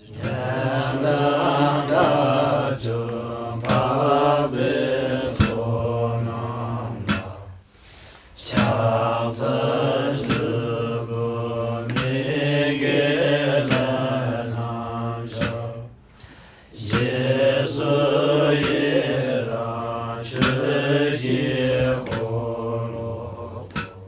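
Tibetan Buddhist monks chanting a liturgy together from their texts in low, steady voices, in long phrases that break off briefly twice. Sharp clicks cut in now and then.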